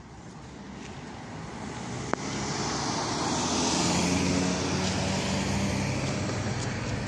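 A road vehicle drives past close by in street traffic. Its engine and tyre noise grow louder to a peak about four seconds in, then ease off slightly. There is one sharp click about two seconds in.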